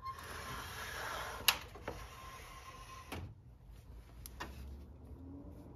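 Wooden sliding front door rolling along its track for about three seconds with a faint squeal, with a few sharp knocks of the door and its frame.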